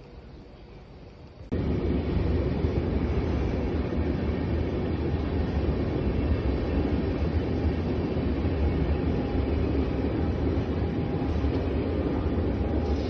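Steady, loud low rumble of a train in motion, cutting in abruptly about a second and a half in after a quieter background.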